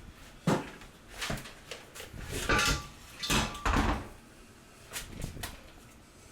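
Hand work on a garbage disposal's sink mounting hardware: a string of knocks, clunks and scrapes of metal parts, with a brief squeak about two and a half seconds in.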